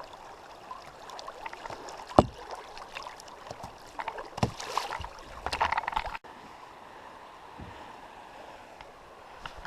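A kayak running river rapids: rushing water with splashes and sharp knocks from paddling, the loudest knock about two seconds in and a flurry of them just before six seconds. After a sudden break the water continues as a quieter, steady rush.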